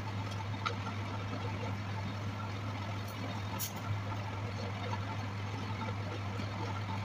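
Electric motor of a belt-driven woodturning lathe running steadily with a constant low hum, with a few faint clicks.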